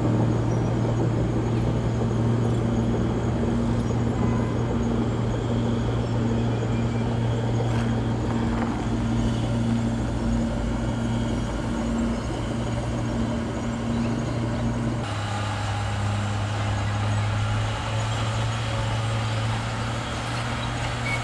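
Bulldozer's diesel engine running steadily under load, with one constant low note; about fifteen seconds in the sound changes abruptly to a slightly lower note.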